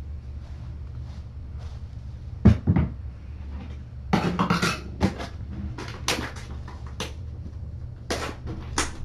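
Two sharp knocks, then a run of short rustling scrapes and clatters close by, over a steady low hum.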